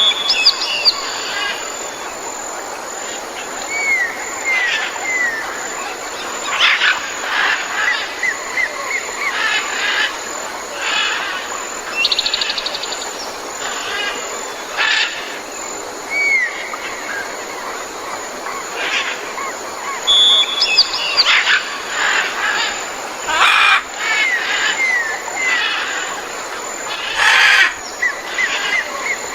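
Tropical forest ambience: many birds call over a steady background hiss. There are series of short curved chirps, a fast trill, a held high whistle and a few loud, coarse calls.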